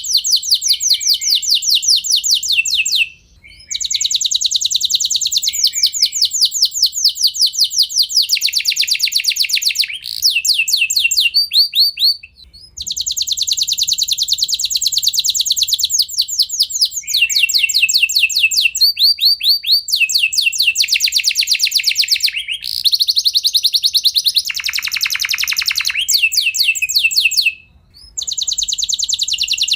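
Domestic canary singing long rolling trills: rapid repeated high notes in phrases several seconds long, broken by three brief pauses, with one lower, deeper roll near the end.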